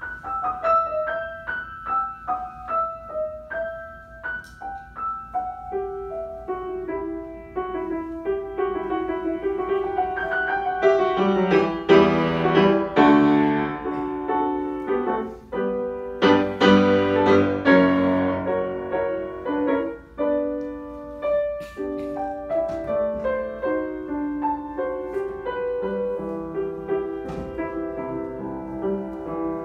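Grand piano played solo in a classical piece, with two louder, fuller passages in the middle before it settles back to a softer line.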